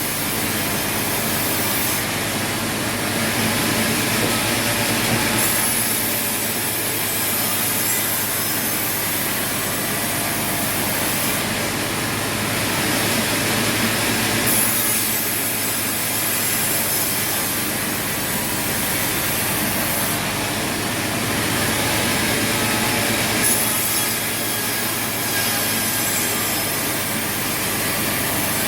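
Sawmill saw cutting through wood, a steady loud run whose high hiss swells and drops back every few seconds.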